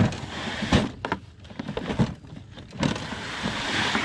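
Metal slide-out storage tray in an exterior camper compartment sliding along its rails, twice: once at the start and again for about the last second, with knocks and clatter of gear in between.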